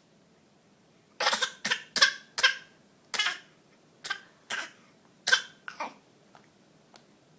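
A baby giving a string of short fake coughs, about nine in small clusters: a deliberate imitation of a cough, not a sign of illness.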